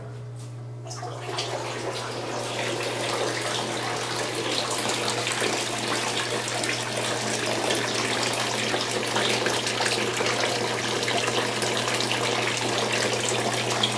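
Submersible water pump running with a low steady hum, its water pouring from a PVC pipe outlet and splashing into the grow bed. The splashing builds over the first couple of seconds and then runs steadily as the bed floods at the start of a flood-and-drain cycle.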